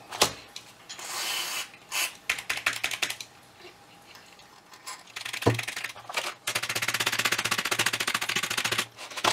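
Short hisses of an aerosol contact-cleaner can sprayed into Amiga 1000 keyswitches, then a fast run of keys clicking as they are pressed over and over for a couple of seconds near the end, working the cleaner into dead key contacts.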